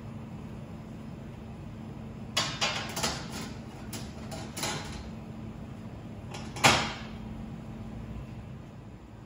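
Drip trays being set back into an espresso machine: a run of clattering knocks and rattles, then a single loudest clack about two seconds later, over a steady low hum.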